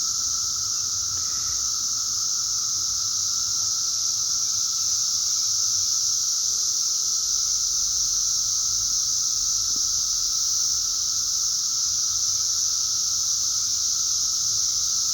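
A dense chorus of periodical cicadas singing all at once, a steady high-pitched drone with a lower steady hum under it, unbroken throughout.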